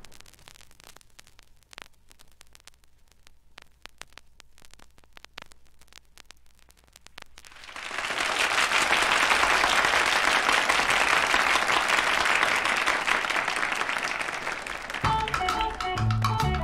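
Vinyl record surface crackle, sparse clicks, then an audience applauding, swelling up about eight seconds in. Music with a bass line starts under the applause near the end.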